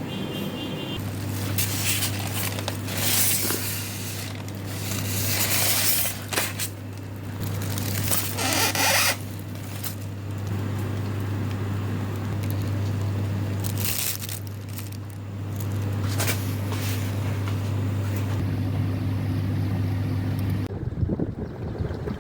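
A steady low mechanical hum with repeated loud rushes of wind-like noise; the hum cuts off suddenly near the end.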